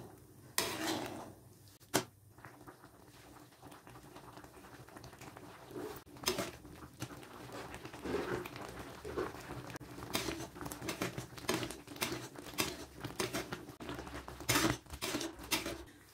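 Coconut-milk banana payasam simmering in an aluminium kadai, its thick surface bubbling and popping in an irregular patter that grows busier a few seconds in. In the first two seconds a metal ladle scrapes and clacks against the pan.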